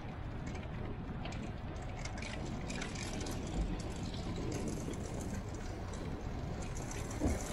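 Car driving on the road: a steady low rumble of tyres and engine, with light rattles and two short thumps, one about three and a half seconds in and one near the end.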